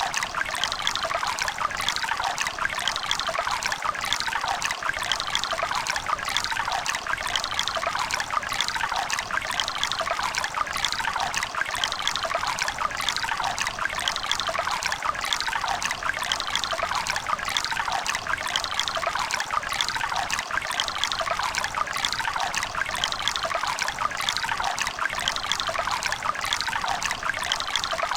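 A river running over rocks: a steady splashing, trickling rush of water with no change.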